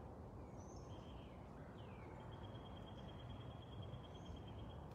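Faint outdoor ambience with distant birds: a few faint high chirps, then about two seconds in a steady, high, finely pulsed trill that runs for over two seconds.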